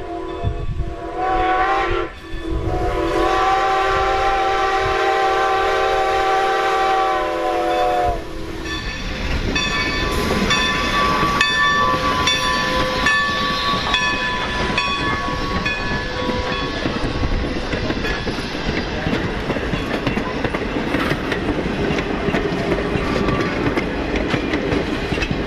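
Steam whistle of Baldwin 2-10-0 No. 90 blowing for a grade crossing: a chord-like blast with a brief break about two seconds in, then a long blast held for about six seconds that sags in pitch as it shuts off. The locomotive and its wooden coaches then roll past with rhythmic clickety-clack of wheels over rail joints.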